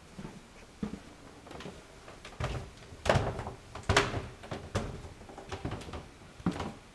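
Footsteps going down a short staircase and onto a hard floor, a step about every half second to a second, with two louder thumps about three and four seconds in.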